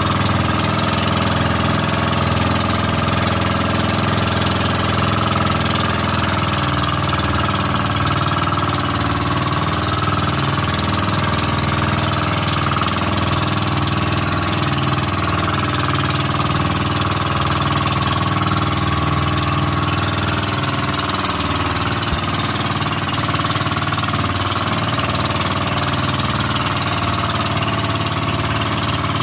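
Motorized outrigger boat's engine running steadily under way, with a constant hiss of rushing water and wind over it.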